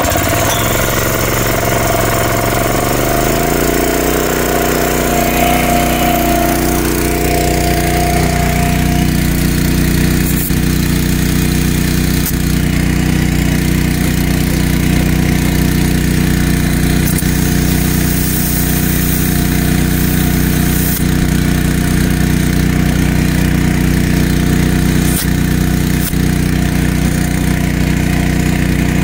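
Small pull-start gas engine, just started, picking up speed over the first few seconds and then running steadily.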